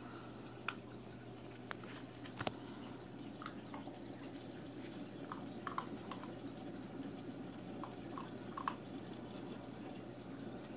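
Aquarium filter water trickling and dripping at the surface over a steady low hum, with scattered small drip plinks and a few sharp clicks.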